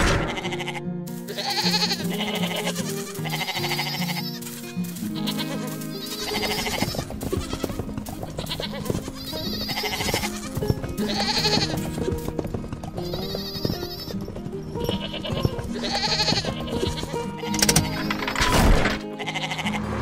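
Cartoon sheep bleating again and again, about one bleat every second or two, over cheerful background music.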